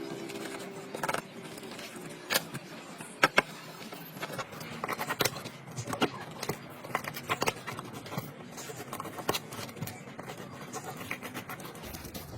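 Irregular small clicks, taps and scrapes of hand tools and parts working on a smart watch, with two sharper knocks about three seconds in.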